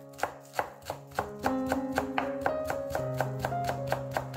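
Chef's knife chopping spring onions on a wooden cutting board: quick, even strikes of about three a second, over background music.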